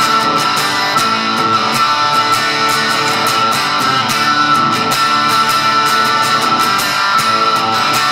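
Electric guitar strummed fast and steadily through the chord progression A, G, F, D, played twice, with a four-string F and a power-chord D.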